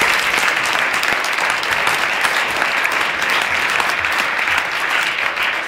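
Audience applauding: many people clapping at once in a dense, steady patter, beginning to die away near the end.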